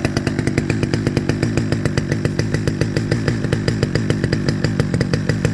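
Stihl 009 top-handle two-stroke chainsaw running steadily without revving, with a regular pulsing beat, on its baseline carburettor setting, which the owner finds way too rich.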